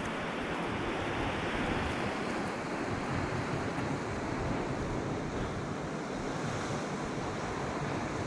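Steady rushing noise of wind and sea surf.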